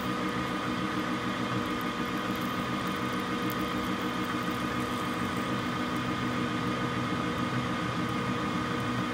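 Metal lathe running steadily with its chuck spinning as a four-flute end mill in the tailstock is fed slowly into a breech plug; an even motor and drive hum with a few steady whining tones. A room air-conditioner fan runs underneath.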